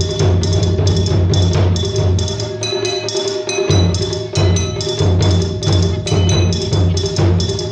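Taiko drums played live with fast, even stick strokes: a run of sharp, cracking hits over a deep drum sound. The deep drum drops out briefly a little before halfway, then comes back in.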